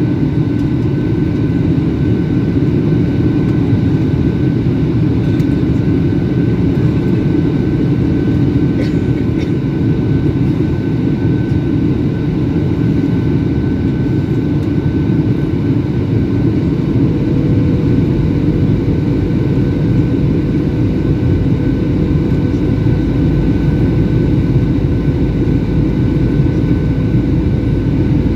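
Steady engine and airflow noise inside a Boeing 737's passenger cabin in flight, a low, even rush with a faint steady whine above it. A second, lower hum joins a little past halfway.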